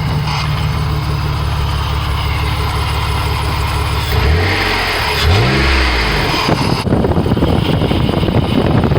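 Dodge Dakota pickup engine, fitted with a makeshift ram-air intake, idling steadily and then revved briefly twice, the pitch rising and falling each time. Near the end a steady noisy rush takes over.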